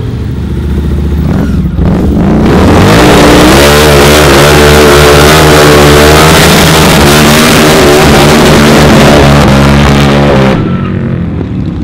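Harley-Davidson V-Rod's liquid-cooled V-twin revved up and held at high revs in a burnout, the spinning rear tyre adding a loud hiss. It climbs about two seconds in, holds steady for some eight seconds, then cuts off.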